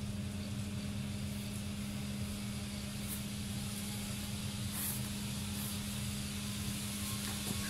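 A steady, unchanging low mechanical hum with a rumble beneath it and a faint hiss, like a machine or motor running nearby.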